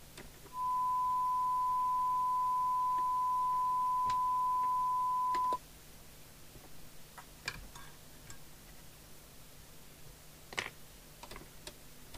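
Steady 1 kHz test tone from a signal generator, heard through an FM CB radio's speaker as the squelch opens on the signal while the squelch preset is being set. The tone lasts about five seconds and cuts off suddenly, and a few faint clicks follow.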